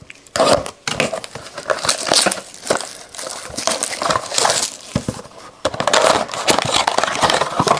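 Trading-card blaster box packaging crinkling and crackling in irregular handling noise as the box's plastic wrap and foil packs are pulled open.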